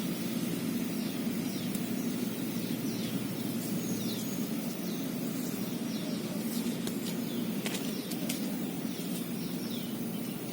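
A bird giving repeated short, falling chirps, about two a second, over a steady low rush of background noise, with a few faint clicks near the end.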